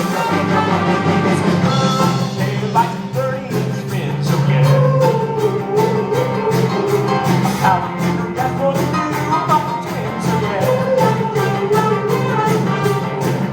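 A song with a singing voice over a band with a steady, regular beat.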